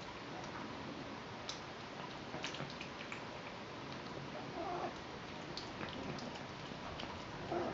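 Mouth noises from eating margarine: scattered wet clicks and smacks over a steady hiss, with a couple of short, louder, lower noises, one about halfway through and one near the end.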